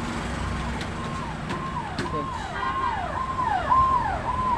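Electronic emergency-vehicle siren wailing in a fast repeating pattern, about two cycles a second, each a held tone that drops sharply in pitch. It grows louder as it approaches, over a low hum of traffic.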